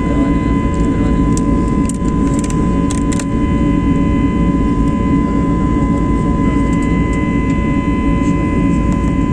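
Aeroplane jet engines running steadily: a loud, even low rumble with a steady high whine. A few faint clicks come about two to three seconds in.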